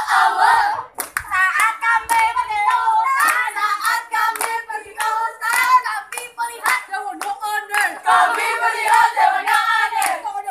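A group of scouts chanting and singing a rhythmic yel-yel cheer in unison, with sharp hand claps punctuating it.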